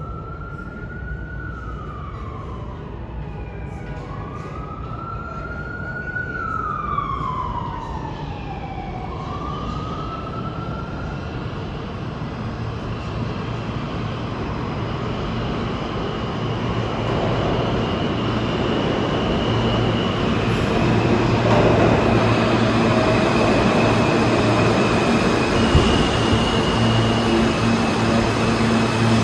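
An emergency-vehicle siren wails up and down over the first ten seconds or so. Then a subway train comes in, its rumble growing steadily louder over a low steady hum.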